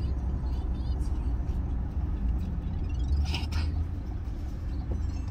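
Steady low rumble of road and engine noise inside a moving car, with a brief higher-pitched sound a little over three seconds in.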